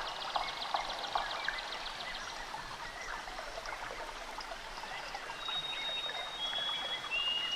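Running water with many small birds chirping. A fast, high trill sounds in the first two seconds, and from about two-thirds of the way in come long, steady high whistles, each a step lower in pitch than the one before.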